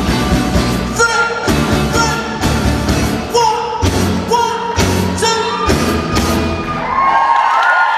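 Live pop band with a male lead singer performing a mash-up; the band stops about seven seconds in and the audience begins cheering.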